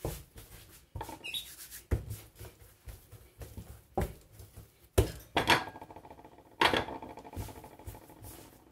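Soft brioche dough being kneaded by hand on a kitchen counter: irregular slaps and thuds about once a second, some with a short ringing after them, and rubbing of hands and dough in between.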